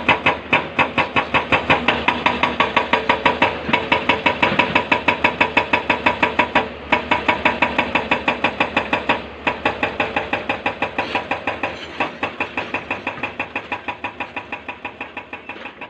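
Excavator's diesel engine running with a fast, even pulsing of about six beats a second, fading gradually over the last several seconds.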